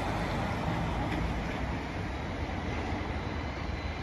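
Road traffic on a city street: a steady rumble of passing vehicles, slowly fading as a vehicle moves away.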